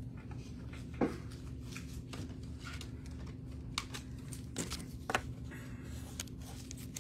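Trading cards being handled on a table: a few light, separate taps and clicks, the sharpest about a second in, over a steady low room hum.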